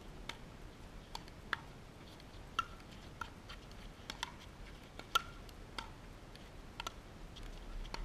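Pickleball paddles hitting a plastic pickleball, and the ball bouncing on the hard court, during a rally: about a dozen short, sharp pocks at uneven intervals. The loudest comes about five seconds in.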